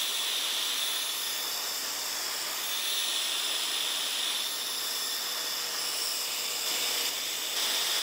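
A 1,000-watt heat gun on its high setting blowing hot air in a steady, even hiss. It is heating the aluminium swingarm around a pressed-in steel bearing so the bearing can come out.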